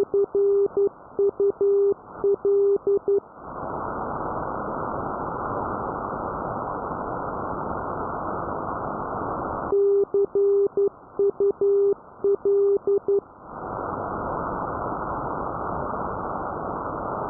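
Morse code (CW) received on a 370 kHz radio signal: a steady tone of about 400 Hz keyed in dots and dashes for about three and a half seconds, spelling CUL, "see you later". Static and hiss follow for about six seconds, then the same group of dots and dashes repeats, then static again. The static drops away whenever the tone sounds.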